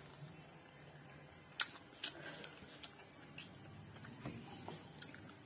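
Close-up eating sounds: a person chewing steamed momos, with a few sharp mouth clicks and smacks, the loudest about one and a half seconds in.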